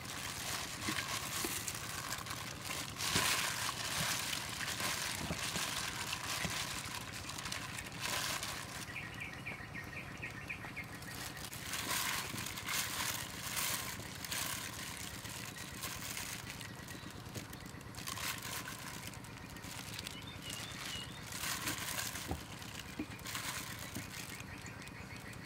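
Hands in plastic food-prep gloves pressing and turning marinated chicken pieces in a plate of flour: soft, irregular rustling and patting.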